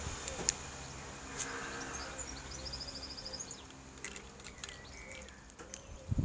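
Garage door opener running with a steady low hum that slowly fades, with a rapid trill of high chirps midway and a knock at the end.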